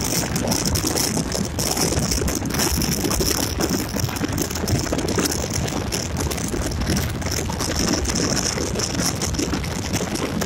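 Steady rush of wind and road noise over the microphone on a moving Yamaha Gladiator motorcycle, with a constant crackling rattle.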